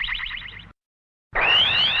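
Synthesized sci-fi sound effects. A fast electronic pulsing tone fades out, and after a short gap of silence a new electronic sound starts: repeated rising chirps, about four a second, like an alarm.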